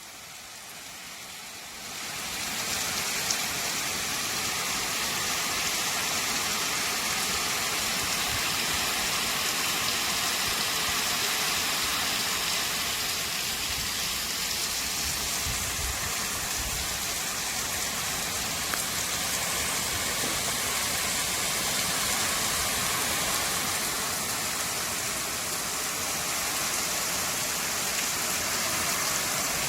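Steady rain falling in a bamboo grove: a dense, even hiss of drops that fades in over the first two seconds, with one sharper tap about three seconds in.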